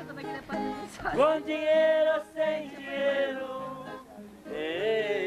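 A man singing a slow seresta song in long, held notes, accompanied by a plucked acoustic guitar.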